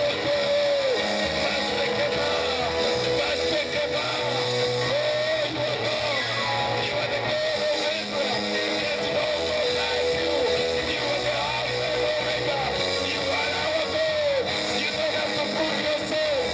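Band music led by guitar, with a bass line changing notes every second or two and a sustained melody line above it.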